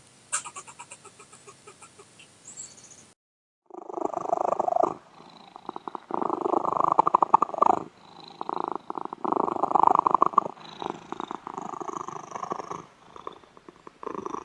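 A domestic cat purring close up, in long pulsing phases with short pauses between them. Before it, about three seconds in, a run of quick fading clicks from an earlier animal clip cuts off abruptly.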